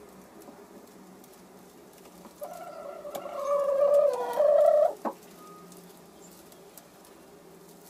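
A hen calls once, a loud, drawn-out cry of about two and a half seconds starting a little over two seconds in, followed right after by a short knock.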